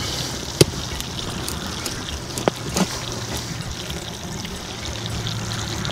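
A large knife cutting into the charred shell of a squash roasted in campfire embers, with one sharp knock about half a second in and two smaller clicks a couple of seconds later, over a steady rushing background.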